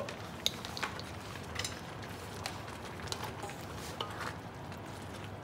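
Scattered light clinks and knocks of a cooking utensil against a pot, as noodles are added and stirred in, over a steady low background hiss.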